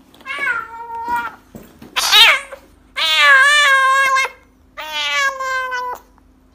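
Kitten meowing loudly four times: a meow of about a second, a short shrill cry, a longer call that is the loudest, and another of about a second.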